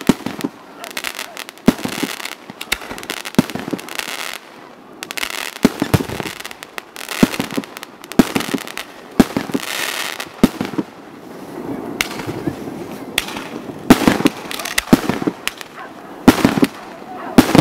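Fireworks display: aerial shells bursting in a rapid, irregular series of sharp bangs, with stretches of crackling between them.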